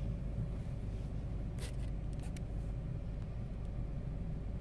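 Steady low rumble of a car's road and engine noise heard inside the cabin while driving, with a couple of faint clicks about halfway through.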